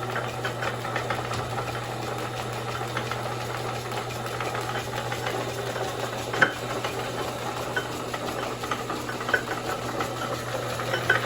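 Monarch Model A engine lathe running in back gear, its spindle driven slowly through the back-gear reduction: a steady motor hum with gear clatter and ticking, and a sharper knock about six and a half seconds in.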